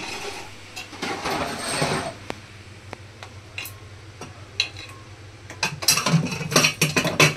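Kitchen utensils and pots clinking and clattering as they are shifted about, with scattered clicks at first and a dense run of quick clicks and knocks in the last two seconds.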